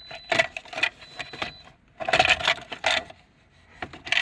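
Car keys jangling and clinking in several short bursts as the ignition key is turned.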